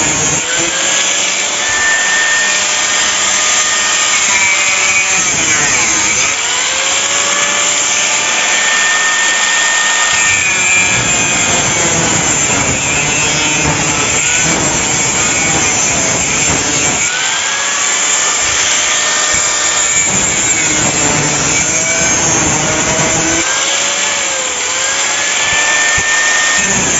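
Handheld electric power tool running hard on metal clamped in a bench vise. Its motor pitch sags and recovers again and again as it is pushed into the work and eased off.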